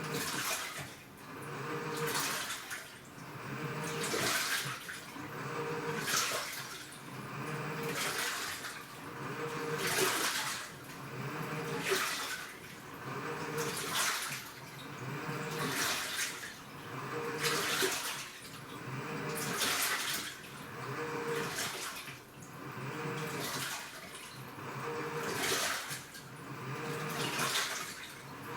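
Washing machine agitating its load: water sloshing in regular swells about every two seconds, with a faint motor hum in each swell.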